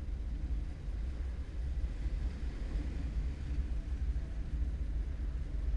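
Steady low rumble of wind buffeting the onboard camera's microphone, with no motor whine: the quadcopter's motors are stopped.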